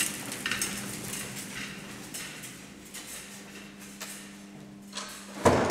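Hospital gurney rattling and clicking as it is wheeled along a tiled corridor, over a steady low hum. A single loud bang comes near the end.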